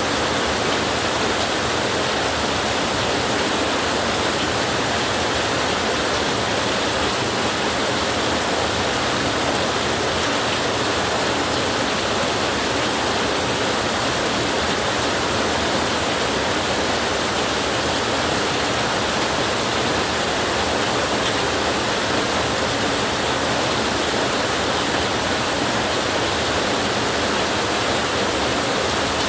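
Heavy rain falling as a steady, even hiss, with no thunder.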